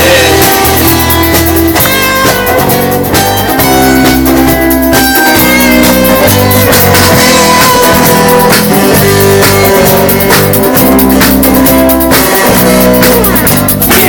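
Rock band playing an instrumental break: electric guitar lines over bass and drum kit, with no vocals.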